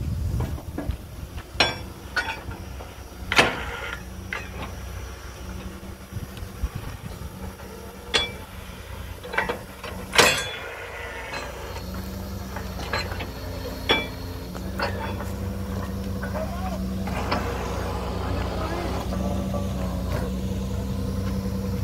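Borewell drilling rig's engine running steadily, with about half a dozen sharp knocks in the first half; the engine grows slightly louder toward the end.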